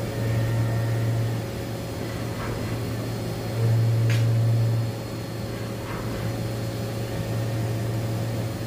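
Haas VF-4SS vertical machining center running: a steady low machine hum with a fainter steady tone above it, growing louder twice for a second or so as the table traverses under the spindle, with a few faint ticks.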